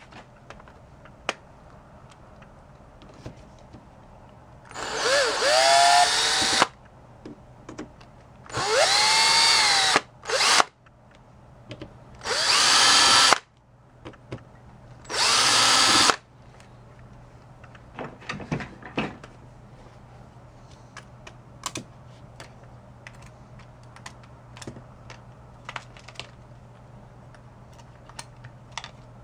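A small power driver with a 1/16-inch hex bit backs out the four case screws of a pager. It makes four short whirring runs, each whine rising as the motor spins up. Light clicks of the screws and casing being handled follow.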